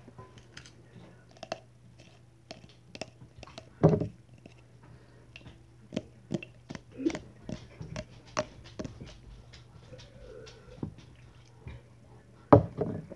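Popcorn being chewed close to the microphone: scattered crisp crunches and mouth clicks, with hands rustling in the bowl. Two louder thumps stand out, about four seconds in and near the end, over a steady low hum.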